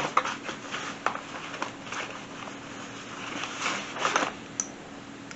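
Handling noise: scattered light clicks and brief rustles as cables and accessories are picked up and moved, over a faint steady hum.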